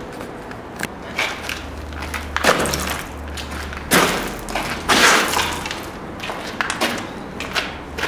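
Footsteps and scuffs on a gritty, debris-strewn floor, with irregular knocks and thumps, the loudest about four and five seconds in.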